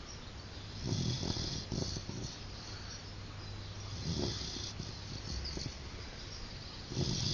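A sleeping pet snoring, one noisy breath about every three seconds.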